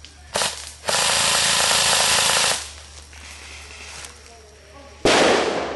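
Airsoft gun firing on full auto: a short burst, then a sustained burst of about a second and a half. Near the end comes a sudden loud noise that fades over about a second.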